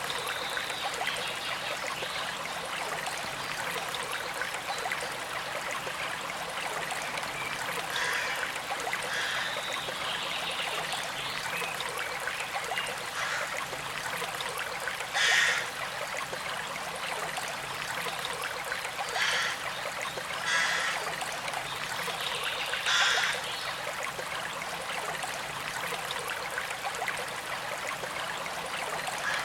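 Small stream trickling steadily over stones. A handful of short, louder sounds stand out above the flow, the loudest about halfway through and again about three-quarters of the way in.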